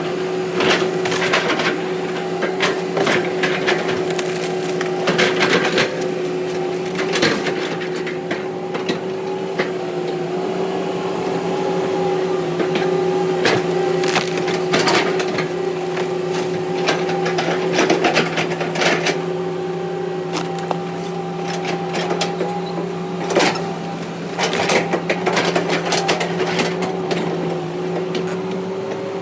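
Heavy earthmoving machine's diesel engine running at a steady pitch, with irregular sharp knocks and clatters scattered throughout.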